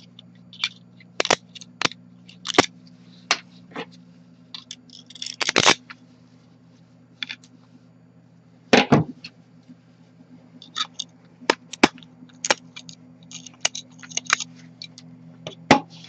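Irregular sharp clicks and snaps of 3D-printed plastic support material being pried and broken off a buckle with a small screwdriver and pliers. The loudest snaps come about five and a half and nine seconds in, and they come more often in the last few seconds.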